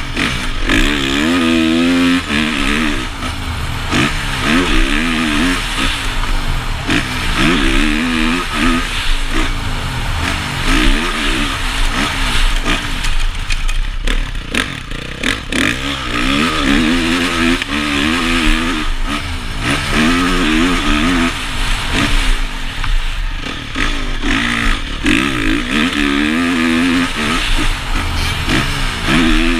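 Honda CRF450 motocross bike's single-cylinder four-stroke engine revving up and backing off again and again as it is ridden hard around the track, its pitch climbing and dropping every two to three seconds. Wind rushes over the helmet camera throughout.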